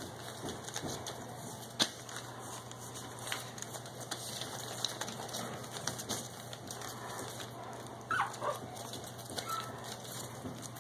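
Pekingese puppies moving about on spread newspaper, with paws scratching and rustling the paper and a sharp tick about two seconds in. A few short, high-pitched puppy whimpers come about eight seconds in.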